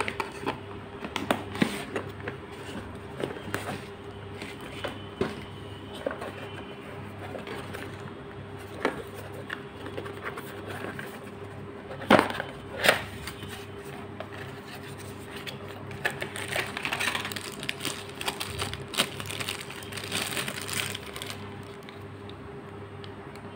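Cardboard packaging being handled and opened: scattered taps, scrapes and clicks of the box, with two sharper knocks a little after halfway. Denser rustling and crinkling of packaging in the later part, over a steady faint hum.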